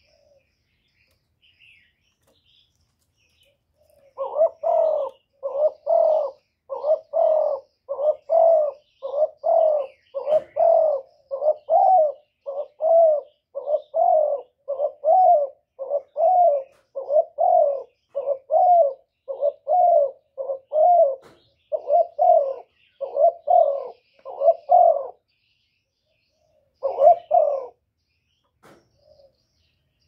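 Spotted dove cooing: a long, even run of short coos, about three every two seconds for some twenty seconds, then a pause and one last coo near the end.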